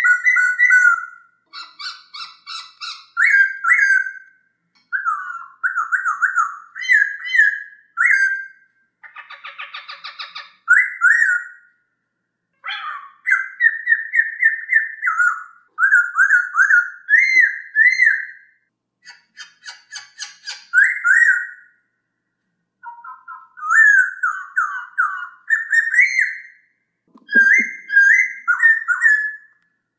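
Poksay hongkong laughingthrush singing: a long run of loud, varied whistled phrases that slide up and down. Bursts of harsh chattering notes come about ten and twenty seconds in, with short pauses between phrases.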